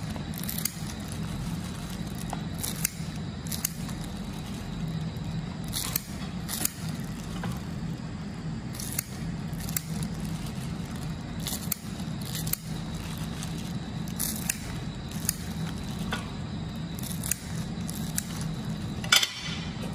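Scissors snipping through crisp fried spring rolls: scattered short sharp snips and crackles, the loudest just before the end, over a steady low hum.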